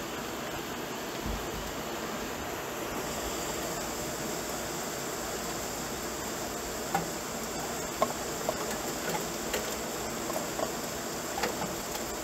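Heavy rain pouring down: a steady, even hiss, with scattered drips and splashes from about seven seconds in.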